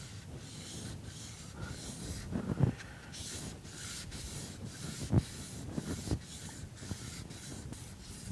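Steel planer knife from a Makita 2040 planer being honed by hand on a wet Japanese water stone: a quick, even run of scraping, hissing strokes as the blade slides back and forth, with a few dull knocks in between.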